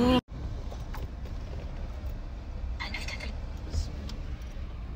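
Steady low rumble of a moving car heard from inside the cabin: road and engine noise, with a brief faint higher sound about three seconds in.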